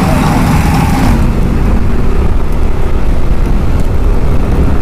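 Motorcycle ride heard from the pillion seat: a steady, loud low rumble of wind on the microphone and the bike running. A higher hiss of passing traffic fades about a second in.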